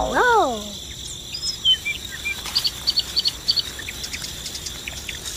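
Small birds chirping and calling again and again in short high notes, over a steady high insect drone. Right at the start a loud call slides down in pitch for under a second.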